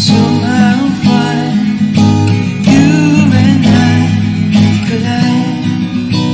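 Acoustic guitar strummed in a steady rhythm, with a voice singing a wordless, wavering melody over it.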